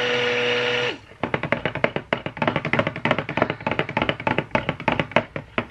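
Stick blender motor running with a steady whine in soap batter, cutting off about a second in. Then rapid, uneven tapping and knocking as the blender head is stirred around against the plastic jug.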